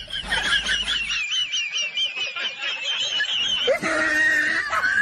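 Soundtrack of a short TikTok clip: a high warbling sound that wobbles up and down several times a second for about three seconds, then a lower voice-like sound near the end.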